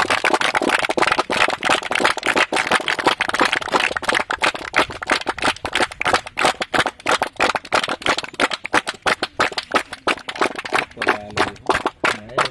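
A group of boys clapping their hands: a dense, continuous run of sharp claps that starts suddenly.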